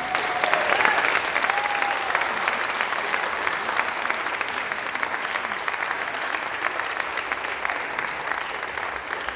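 Audience applauding at the end of a song, a dense steady patter of many hands clapping, with a few voices calling out in the first couple of seconds; the clapping eases slightly toward the end.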